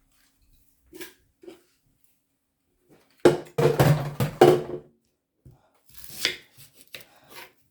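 Kitchen knife chopping onions on a cutting board: a couple of single knocks, then a quick, loud run of chops about three seconds in, and a few lighter knocks near the end.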